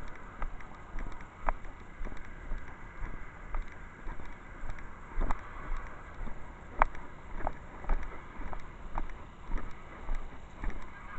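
Footsteps and the jostling of a chest-mounted camera while walking, thumping about twice a second, over the steady sound of road traffic passing.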